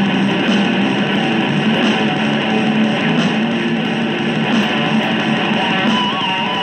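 Electric guitar played continuously, an instrumental passage with no singing.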